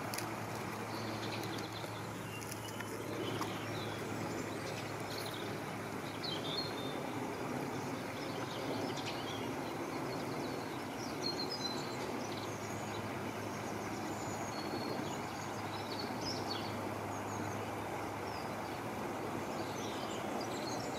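Small birds chirping and singing on and off over a steady low rumble and hum.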